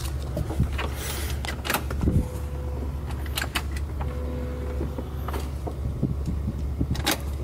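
BMW E36's electric fuel pump running with the key on, a steady low hum as it pressurizes the fuel system, with several sharp clicks over it.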